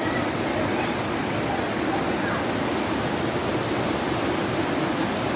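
Waterfall: water falling and splashing, heard as a steady, unbroken rush.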